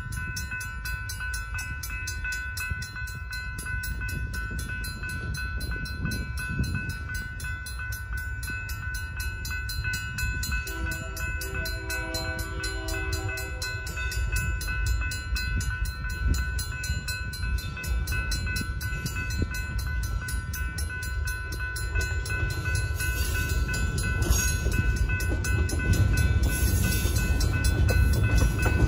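Grade-crossing bells ring continuously and rapidly: a GS Type 3 electronic bell and a Safetran mechanical bell, signalling an approaching train. About a third of the way in, a locomotive's K3HA air horn sounds one chord for about three seconds. A train's rumble grows louder toward the end as a switcher shoves its cars into the crossing.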